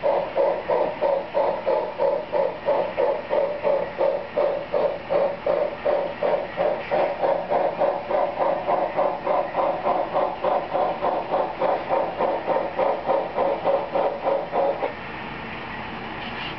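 Sound-equipped model steam locomotive chuffing in a steady rhythm, about two to three beats a second. The beat breaks off to a steady hiss a little before the end.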